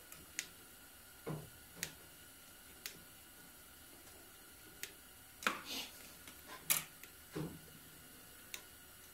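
Light scattered clicks of a screwdriver turning the terminal screw on a small generator starter battery, with a few louder scrapes and clinks in the second half as the positive cable and its screw come off the terminal.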